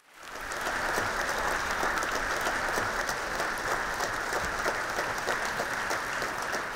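Audience applauding. It rises quickly out of silence at the start, then holds steady.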